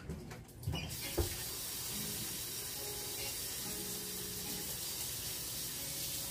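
Kitchen sink faucet turned on about a second in and running steadily, the water splashing over gloved hands as they are washed under it. A couple of light knocks come just before the water starts.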